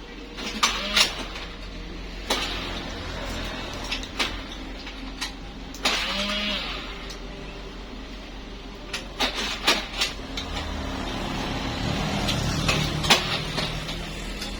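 Scattered sharp metal knocks and clinks of tools and engine parts being handled, with a motor vehicle's engine running and swelling in the background near the end.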